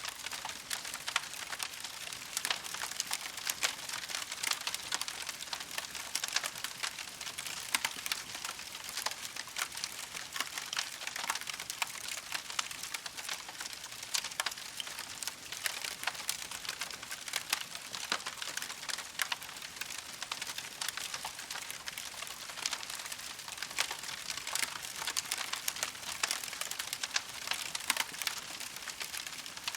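Wood campfire crackling steadily: a dense, unbroken run of small pops and snaps over a soft hiss.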